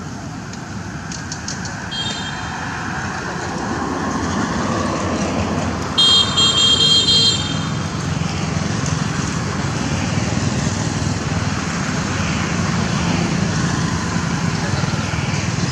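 Steady road traffic noise from passing vehicles, with a vehicle horn tooting briefly about two seconds in and again, louder and for over a second, about six seconds in.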